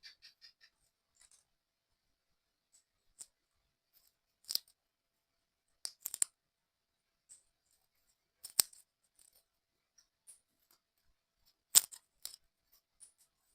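Small hard puzzle-kit parts clicking and tapping as they are handled and fitted together by hand. A quick run of ticks at the start gives way to scattered single sharp clicks, the loudest about 9 and 12 seconds in.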